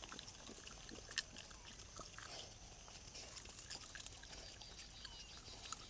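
Wild boar sow and piglets foraging on dry ground: faint grunts and short squeaks among scattered clicks and rustles of their movement, with one sharper click about a second in. A steady high-pitched whine runs underneath.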